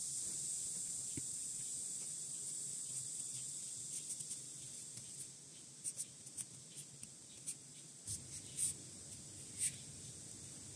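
Metal crochet hook working yarn: faint scratchy rustles and light ticks from about three seconds in, over a steady high hiss.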